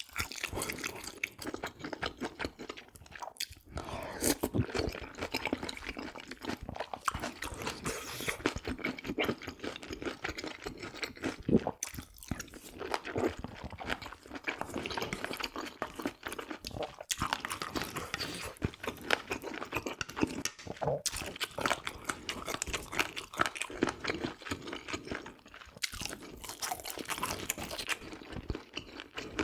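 Close-miked chewing and crunching of pork offal: a dense, irregular run of wet bites and chews with a few brief pauses.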